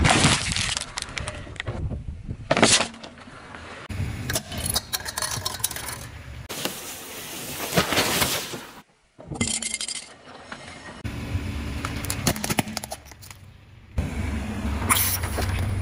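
Car tyres rolling over and crushing small objects such as a plastic tray and toys: crackling, crunching and snapping in a run of short, abruptly cut segments, with the car's low rumble underneath.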